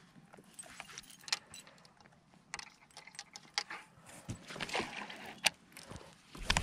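Irregular sharp clicks and light rattles of small hard objects being handled, like tackle clinking, with a few louder knocks near the end.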